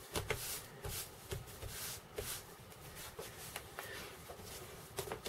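Faint swishing of a cloth rubbing neatsfoot oil into a dyed leather strap, with a few light ticks scattered through it.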